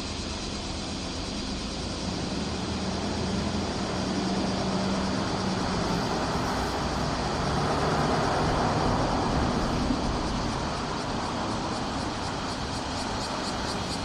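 A steady chorus of cicadas with thin, high, even tones that pulse near the end. Under it is a low mechanical rumble, like a passing vehicle, that swells toward the middle and then eases off.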